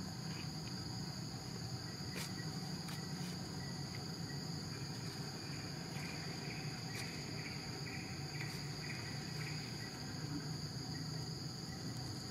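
Steady high-pitched insect chorus in the forest, over a low steady hum, with a few faint clicks.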